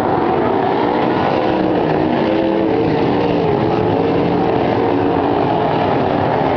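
A field of winged sprint cars running on a dirt oval: many engines running at once, their pitches rising and falling as cars pass close by.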